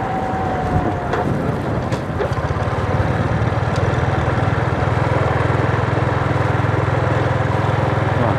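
Motor vehicle engine running steadily while travelling along a road: a low, rapidly pulsing drone with a few faint clicks.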